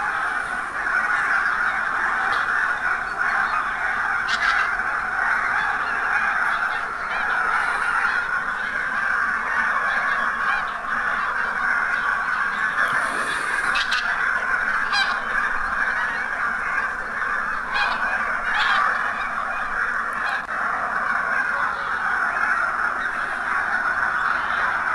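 A large flock of wild geese honking all together in a dense, continuous chorus, with a few sharper single calls standing out now and then.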